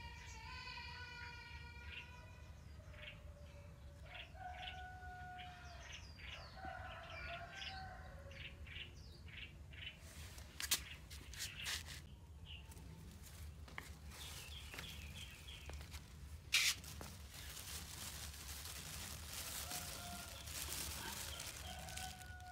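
Small birds chirping and calling in quick gliding notes through the first half. Then a few sharp clicks, the loudest at about 11 and 17 seconds in, and a thin clear plastic bag crinkling as it is handled near the end, with a few more bird calls.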